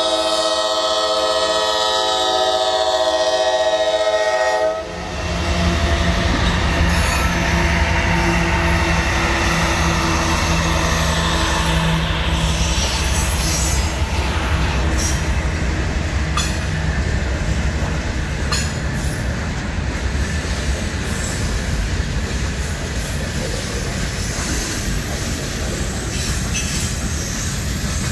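CSX freight train at a grade crossing: the locomotive's air horn holds one chord for about the first five seconds and cuts off abruptly. Then the diesel locomotives rumble past, followed by covered hopper cars rolling by with a steady rush of wheels on rails and scattered sharp clicks.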